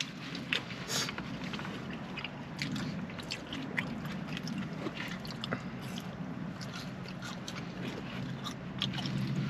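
Close-up chewing and biting into a burger, with many small wet mouth clicks and crackles scattered throughout, over a low steady hum.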